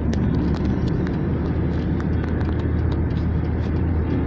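Steady low rumble of road and engine noise heard inside a moving Hyundai car at highway speed, with scattered light clicks.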